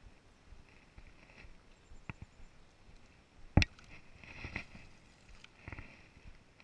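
A few short, sharp clicks and knocks over a quiet background, the loudest about three and a half seconds in, with smaller ones before and after it: handling noise from the angler's gear.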